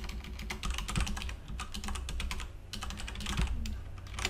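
Typing on a computer keyboard: a quick run of key clicks broken by a couple of brief pauses.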